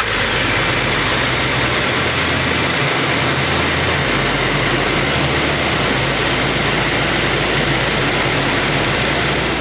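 Supercharged 3.5-litre V6 of a 2018 Toyota Tacoma, fitted with a Magnuson supercharger, running steadily under an even, loud rush of noise.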